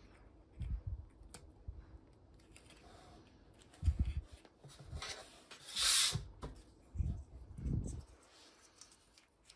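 Small plastic housing parts handled and pressed together by hand: scattered soft knocks and light clicks, with one short scraping rub of plastic about six seconds in.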